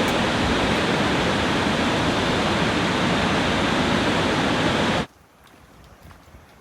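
Steady rushing noise of a large waterfall on the Genesee River, heard close up. It cuts off abruptly about five seconds in, leaving only faint outdoor background with a few light ticks.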